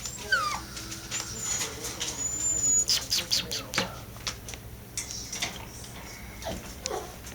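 Miniature dachshund puppies whimpering in short, high-pitched squeaks that fall in pitch, with a run of sharp clicks and scuffling about three to four seconds in.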